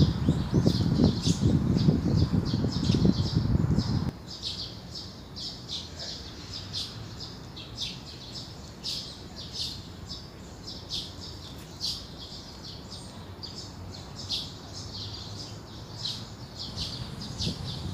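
Many small birds chirping in short, high calls, one after another. A low rumble of wind on the microphone fills the first four seconds, cuts off suddenly, and returns just before the end.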